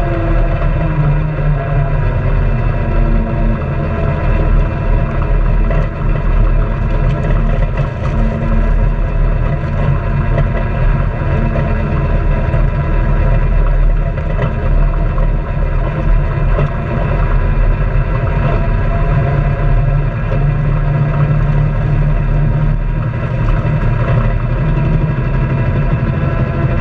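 Honda Pioneer 700-4 side-by-side's single-cylinder engine running steadily as it drives, dipping a little in pitch near the start. Tyres crunch and rattle over loose gravel and stones underneath.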